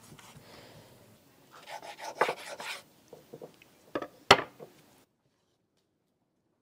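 A knife carving grilled chicken on a wooden cutting board: scraping and cutting sounds, then a few clicks and one sharp knock about four seconds in, after which the sound cuts off.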